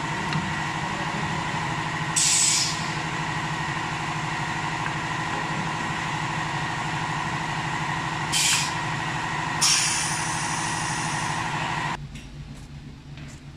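Steady machine hum with three short, loud hisses of compressed air, the second and third close together, as a pneumatic device clamps wooden blanks between the lathe centres. Near the end the hum drops away suddenly and it turns quieter.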